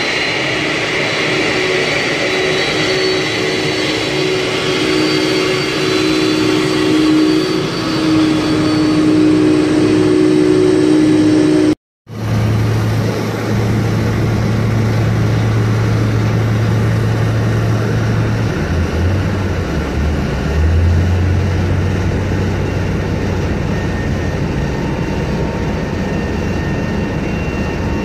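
Boeing 747 jet engines whining steadily as the airliner taxis. After a sudden cut, an aircraft tow tug's engine drones low and steady, dropping and then coming back up in pitch about 19 to 21 seconds in.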